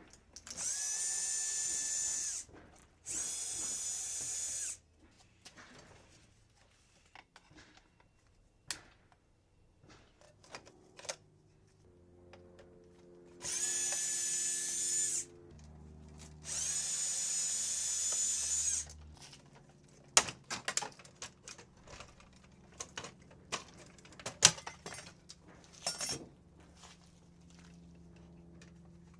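Cordless power drill/driver running in four short bursts with a steady high whine, backing out screws from a microwave's casing and parts. Later come scattered clicks and clatters of screws and metal parts being handled.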